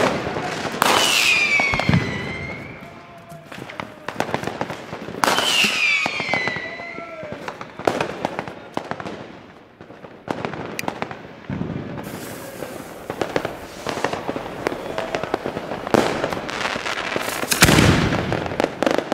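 New Year's Eve fireworks all around: scattered crackling bangs and two falling whistles, about one and five seconds in. Near the end, a 75 mm Zink cylinder shell's lift charge fires it out of its mortar tube with a deep boom, the loudest sound here.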